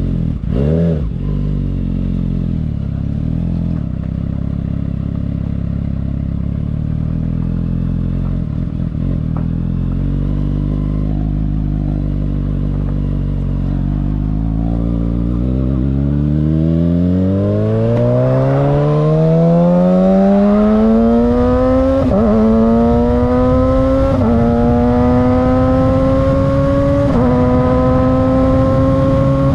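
Kawasaki ZX-6R 636 inline-four engine running. It gives a short blip of the throttle near the start, then idles steadily. After about 15 seconds the revs rise smoothly over several seconds and stay high, with a few brief dips.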